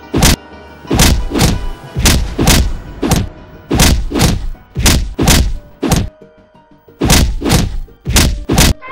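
Animated fight sound effects: a run of loud hits, mostly in quick pairs about a second apart, with a short pause about two-thirds of the way through, over background music.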